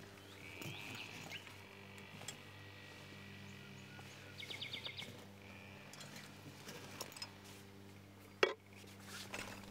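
Faint birdsong, a few chirps and a quick trill, over a low steady hum, with light clicks of metal rods and aluminium tubes being handled and fitted to a metal frame; one sharper metal knock near the end is the loudest sound.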